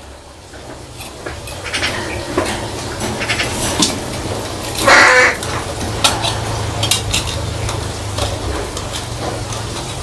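A pet crow knocks a plastic cup lid about against its wire cage, giving a run of light clicks, taps and rattles. It gives one short loud caw about five seconds in, over a steady low hum.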